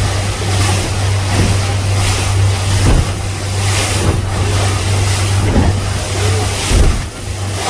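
Speedboat engine running at speed with a steady low drone, the hull slapping through choppy water in irregular surges of spray, with wind buffeting the microphone.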